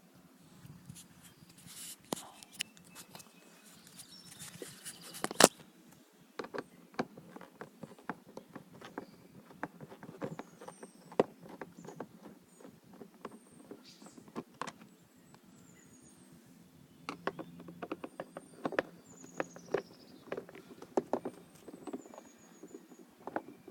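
Scattered clicks and knocks of hand tools and screws being worked out of a plastic heater and evaporator housing, with one sharp knock about five seconds in. Short, high squeaks that fall in pitch come now and then, mostly in the second half.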